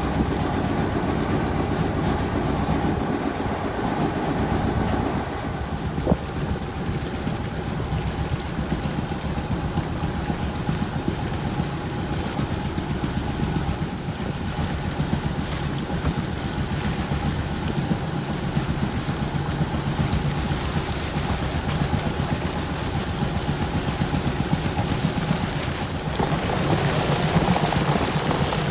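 A boat's engine running steadily, with water noise throughout; a louder rush of splashing water joins near the end.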